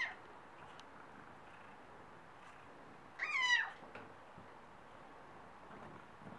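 Domestic cat meowing, begging for kitty grass: the end of one meow at the very start, then one clear meow about three seconds in, its pitch rising then falling.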